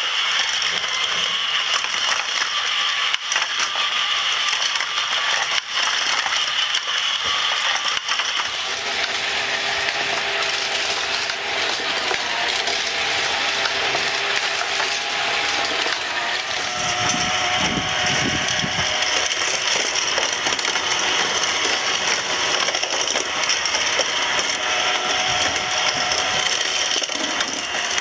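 Battery-powered Tomica toy playsets running together: small motors and plastic gear lifts whirring and ratcheting steadily, with die-cast minicars clicking and clattering along and down the plastic tracks. A short spell of heavier rumbling comes about two-thirds of the way through.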